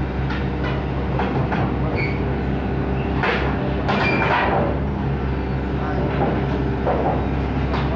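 Hitachi ZX110 MF excavator's diesel engine running steadily under load as the machine crawls on its steel tracks up steel loading ramps onto a truck trailer. The track links clank and grind against the ramp steel, with brief squeals and the loudest clanking about three to four seconds in.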